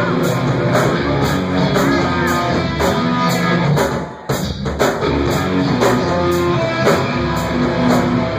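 Live rock band playing: electric guitar over a drum kit, with cymbals keeping a steady beat. The band drops out briefly about four seconds in, then comes straight back in.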